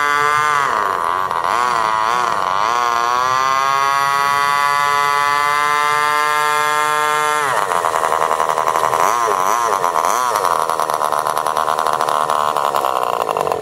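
Small RC boat engine running hard, its pitch rising and falling with the throttle. It holds a high, steady pitch for several seconds, drops sharply about seven and a half seconds in, then rises and falls in short blips.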